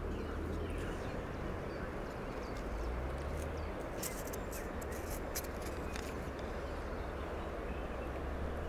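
Steady outdoor background hiss with a low rumble, and a few short sharp clicks about four to five seconds in as the fishing float and line are handled.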